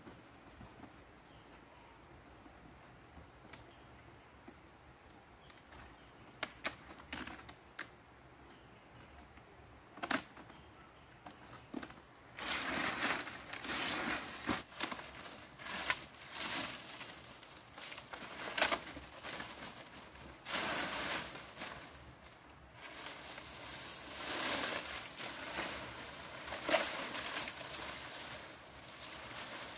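A few sharp clicks and knocks, then from about twelve seconds in repeated rustling and crunching of dry material being handled, over a steady high-pitched whine.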